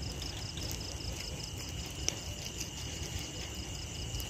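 Crickets chirping at night: a steady high trill with a rapid, evenly spaced chirp above it, over a low rumble.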